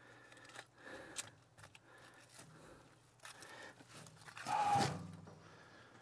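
Rustling and light crackling of harvested elephant garlic stalks and leaves being handled and bundled, with scattered small clicks. About three-quarters of the way through there is a brief, louder pitched sound.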